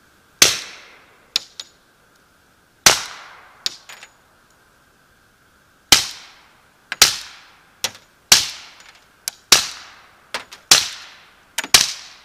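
Suppressed Glock 20 10mm pistol with a SilencerCo Hybrid 46 suppressor firing subsonic 200-grain full metal jacket rounds: eight sharp shots at uneven intervals, each trailing off in an echo, with lighter clicks between some of them.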